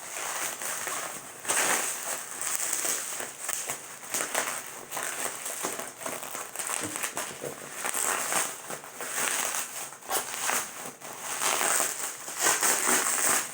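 Heavily taped package being torn open by hand: packing tape ripped and peeled and packaging crinkling, in irregular bursts.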